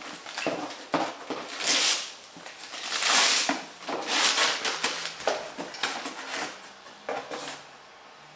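Wrapping paper being torn and crumpled off a gift in a run of loud ripping rustles, with the cardboard box inside being handled; the rustling dies away near the end.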